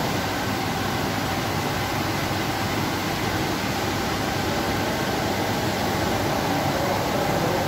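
Steady background noise: an even, continuous hiss and rush with no separate events.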